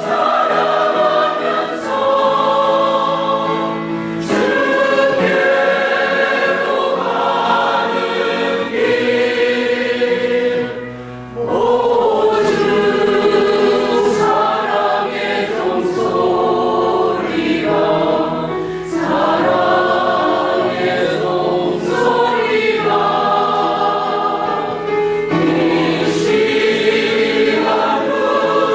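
Church choir singing a hymn in parts, in long held phrases with some vibrato. There is a brief break for breath about eleven seconds in.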